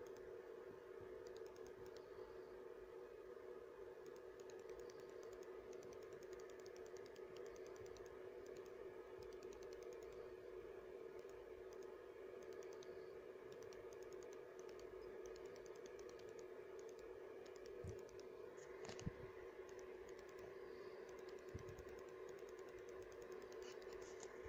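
Faint clicking and tapping of fingers handling a small two-tube nixie display circuit board, over a steady low hum. A few soft bumps come about eighteen to twenty-two seconds in.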